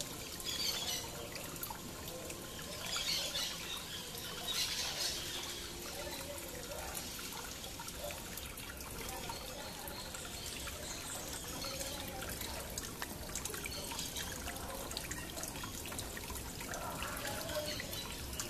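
Water trickling and splashing steadily over a small stacked-stone garden waterfall into a pond, with a few louder splashy spells in the first five seconds.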